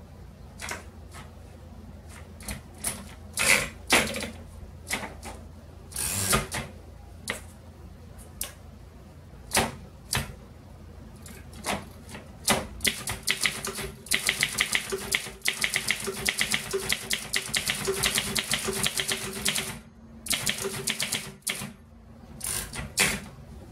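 A 1928 Underwood No. 5 manual desktop typewriter being typed on: scattered single keystrokes for the first dozen seconds, then a fast, even run of keystrokes for about seven seconds, a brief pause, and a few more strikes near the end.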